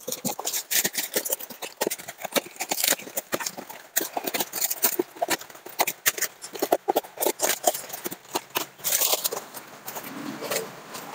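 Taped cardboard and plastic wrapping being torn and pulled apart by hand: a dense, irregular run of rips, crackles and rustles, with a longer tearing hiss near the end.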